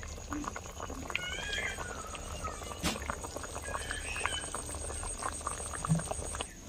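Potato-tomato curry simmering in an iron kadhai, with small scattered pops of bubbles. An animal gives a drawn-out call that falls in pitch about a second in, and a shorter call about four seconds in.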